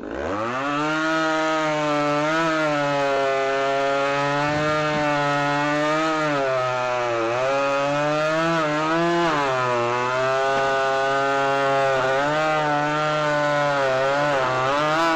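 Ported and piped Stihl MS310 chainsaw with a 28-inch bar revving up, then cutting through cherry slabwood. Its pitch sags repeatedly under load and climbs back between cuts.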